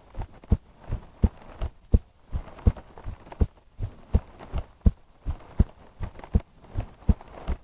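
A woman's heartbeat recorded close up: a steady lub-dub of paired low thumps at about 80 beats a minute.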